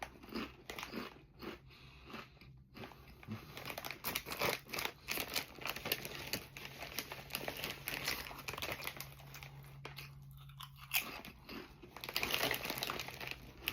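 Close-up crunching and chewing of wavy potato chips, a dense run of irregular crisp cracks, with a brief lull near the end of the chewing.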